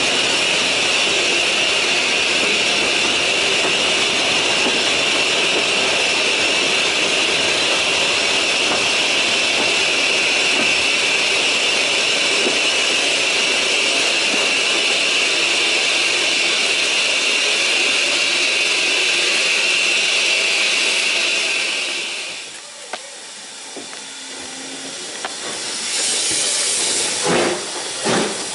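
Steam locomotive letting off steam: a loud, steady hiss with a high whistling edge that cuts off suddenly about 22 seconds in. A few short bursts of steam follow near the end.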